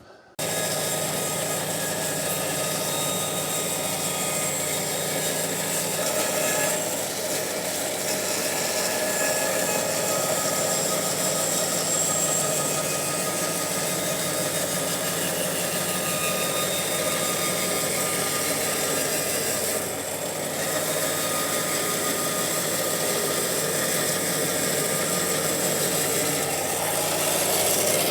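Bandsaw running steadily while it cuts a rough-sawn board along its length to give it a flat face before planing.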